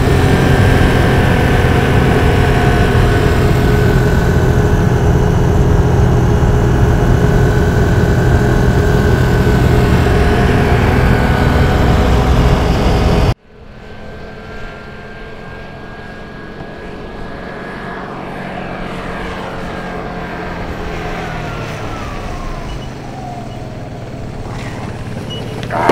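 A motor scooter's engine running at steady speed, loud and close. About halfway through it cuts off suddenly. The engine is then heard quieter, growing louder while its pitch slowly falls.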